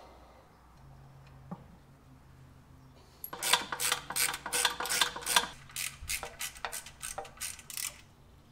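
Hand ratchet wrench clicking as bolts are run in on the transmission's bellhousing dust cover, about four clicks a second starting about three seconds in and thinning out toward the end.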